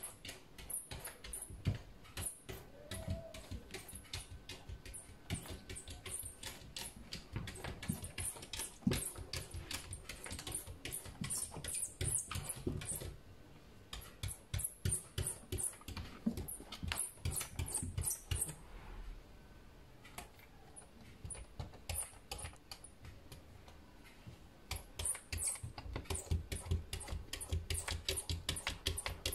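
Cat claws scratching and tapping on window glass in rapid runs of clicks, pausing twice, the second time for several seconds.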